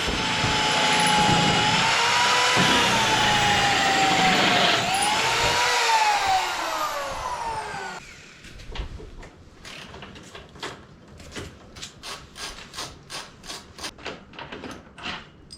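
Power drill running with a whining motor whose pitch wavers, then drops and winds down about six seconds in. It is followed by a string of light clicks, about two a second toward the end.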